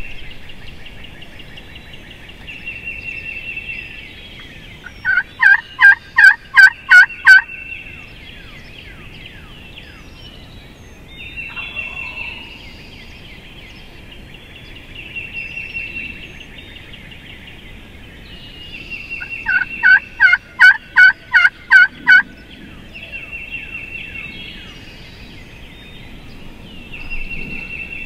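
Two series of about eight loud turkey yelps, a few per second, about five seconds in and again near twenty seconds. Between them a songbird's short, high trill repeats every few seconds.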